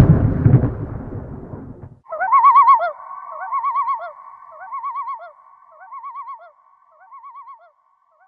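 A low noisy rumble fades out over the first two seconds. Then a warbling, bird-like call repeats about once a second, each repeat fainter than the last.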